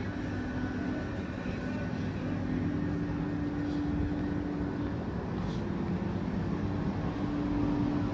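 An engine runs with a steady, even drone that holds its pitch throughout.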